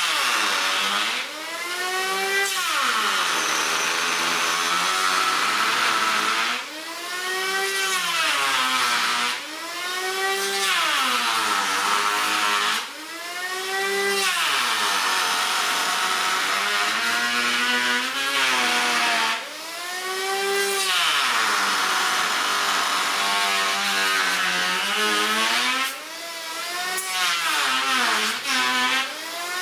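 Electric power tool motor whining while working wood, its pitch sweeping up and back down again and again every few seconds over a steady noisy wash.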